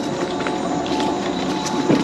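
High-speed electric mobility scooter riding over a paved trail: a steady motor whine with rattles and small knocks, and a harder bump near the end.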